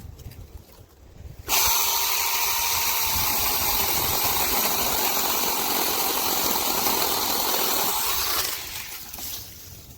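Seesii cordless electric mini chainsaw running at full speed for about seven seconds with a steady motor whine and chain noise, starting abruptly and winding down near the end.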